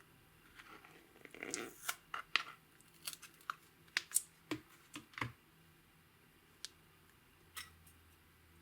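Slime being worked by hand: a run of short, sticky clicks and crackles, thickest for the first five seconds, then two single clicks.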